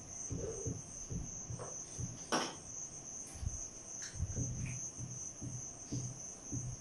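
Dry-erase marker writing on a whiteboard: irregular soft strokes and scrapes. A steady high-pitched whine runs underneath, and there is one sharp click about two and a half seconds in.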